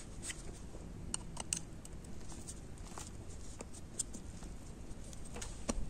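Scattered small clicks and light taps of hand work on a motorcycle wheel hub, as the dust cover over the wheel bearing's seal is taken off to reach the bearing grease.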